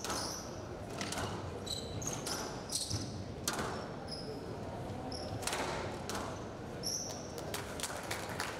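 Squash rally on a glass court: sharp, irregular cracks of the ball off the rackets and walls, with short high squeaks of the players' shoes on the court floor.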